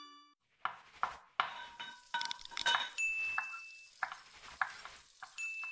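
A quick run of metal kitchen utensils clinking and knocking against pots and dishes, some strikes ringing briefly. A high steady ring sounds twice, about three seconds in and again near the end.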